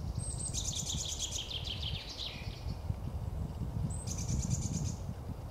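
A small songbird singing two phrases of rapid trills falling in pitch: the first lasts about two seconds, the second is shorter, about four seconds in. A steady low rumble runs underneath.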